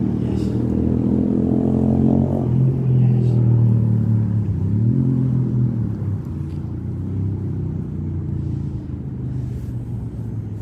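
A motor vehicle engine running, its pitch shifting up and down over the first few seconds, then fading away in the second half.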